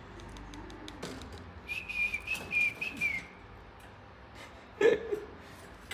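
A single high whistled note, held for about a second and a half with a slight waver and a dip at the end, over scattered small clicks, with a brief louder sound near the end.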